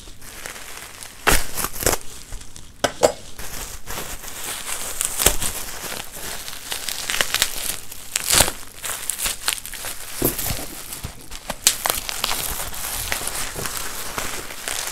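Bubble wrap and plastic film crinkling and rustling as a package is unwrapped by hand, with irregular sharp crackles.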